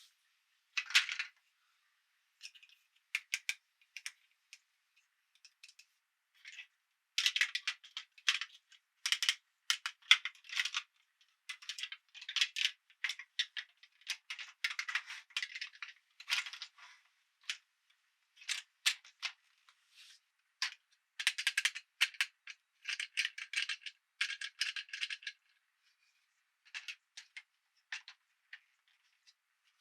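Plastic toy pieces being handled, clicking and rattling in irregular short clusters with brief pauses between them.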